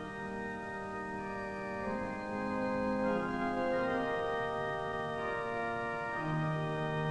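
Background organ music: slow, sustained chords that change every second or so.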